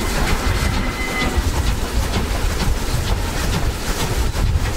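DB class 23 steam locomotive 23 023 under way, heard from its front end: a quick series of sharp beats, about three a second, over a steady deep rumble of the locomotive and its wheels on the rails.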